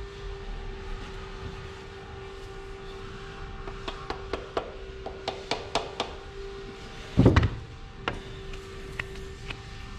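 Light metal clicks and clinks of a connecting rod's big-end cap and bearing being handled and fitted: a quick run of clicks about four to six seconds in, and one louder thud just after seven seconds. A steady hum runs underneath.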